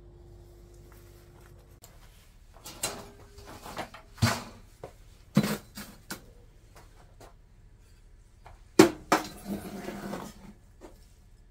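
Metal clanks and knocks from a wood stove's lid and lid rings being handled, a handful of sharp separate strikes, with a short stretch of scraping in the ashes about nine seconds in.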